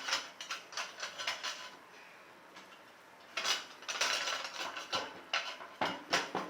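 Irregular metallic clicks and clinks of hand tools and metal fan parts being handled. A few strikes come in the first second and a half, then a denser run of clatter from about three and a half seconds in.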